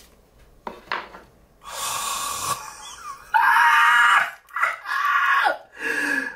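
Cardboard phone packaging being opened: a couple of light taps, then the box sleeve or lid sliding off with a rustling hiss. From about three seconds in, a man's loud, excited, wordless high-pitched vocalizing, in several bursts.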